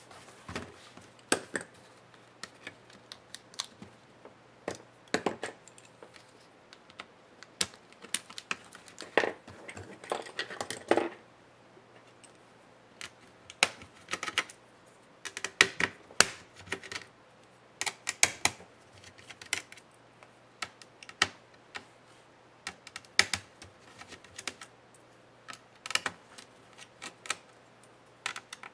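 Irregular light clicks and taps of hands handling the plastic and metal parts of an opened HP Stream 13 laptop during disassembly, coming in clusters with short pauses between.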